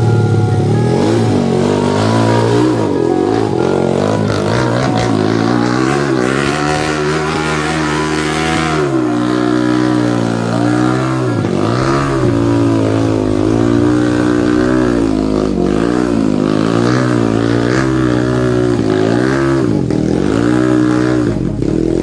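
Underbone motorcycle engine revving hard over and over, its pitch climbing and then dropping every second or two as it works a bike up a muddy climb.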